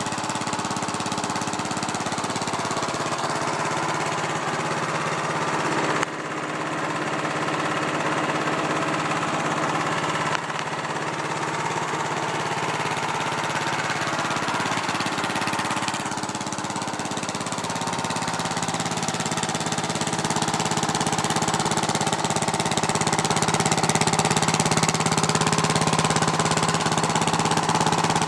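Small vertical-shaft lawn-mower engine running steadily on propane, driving a car alternator through a chain as a homemade generator; a little louder in the last third.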